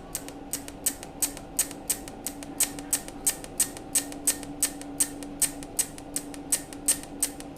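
Jasic 200A MOSFET TIG welder's high-voltage arc starter clicking in an even series, about four sharp ticks a second, over the machine's steady hum.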